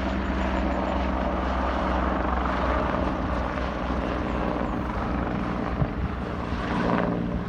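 Offshore helicopter lifting off and climbing away, its rotor and turbine engines running steadily with a low drone.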